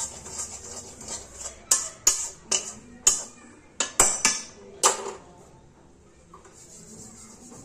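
Metal spatula scraping and knocking against a metal kadhai while stirring dry roasted mustard oil cake. Quick light scrapes at first, then about eight sharper, loud scrapes and clacks, dying down to faint scraping after about five seconds.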